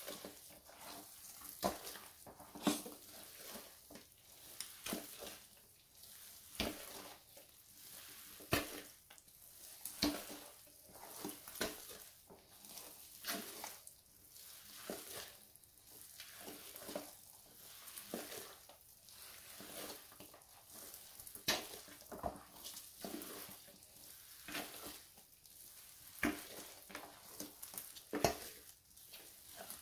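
Bare feet squishing and treading moist chocolate cake: repeated wet squelches, roughly one a second, with a crackling fizz as the crumb is pressed.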